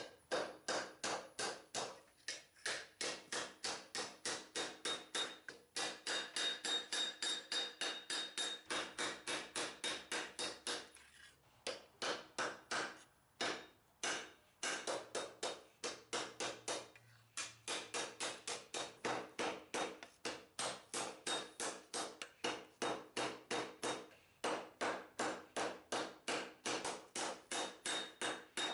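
Hand hammer forging red-hot lawnmower-blade steel on a steel block anvil: steady blows about three a second, each with a short metallic ring. The hammering stops briefly a few times, while the blade is turned over.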